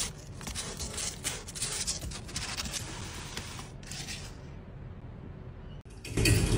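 Scratchy rubbing and clicking right on the phone's microphone as a kitten noses at the phone, busiest in the first few seconds. About six seconds in, louder music cuts in.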